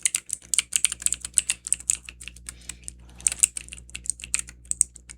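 Keys clicking rapidly and irregularly, several presses a second, like fast typing on a keyboard.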